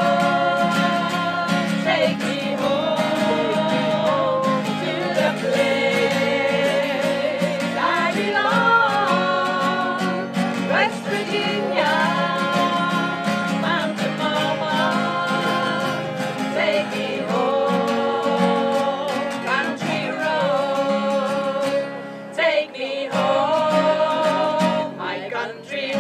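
Four women singing a song together to two acoustic guitars.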